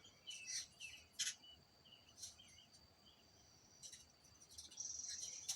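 Faint bird chirps and short calls from a bird video played through a TV's speaker, scattered irregularly over a thin, steady high tone.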